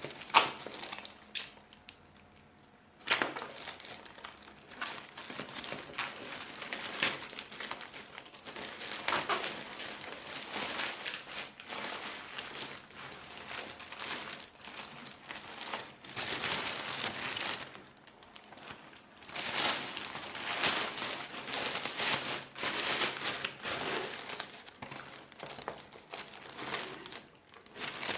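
Packaging being unwrapped and handled, crinkling and rustling in irregular bursts with occasional sharp clicks, pausing briefly near the start.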